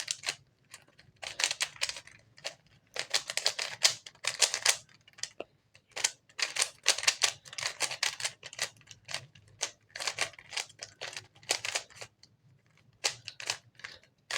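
Rubik's cube being turned quickly by hand, the plastic layers clicking and clacking in rapid runs with short pauses between them.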